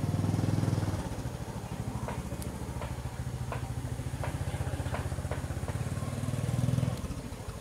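A small engine running steadily at a low, even pitch, swelling a little near the start and again near the end, with sharp clicks about two or three times a second over it.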